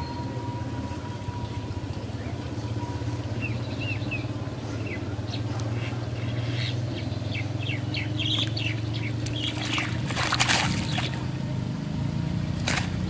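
Birds chirping in short calls over a steady low hum. Near the end there are brief splashes of water as a wet cast net is lifted out of a pond.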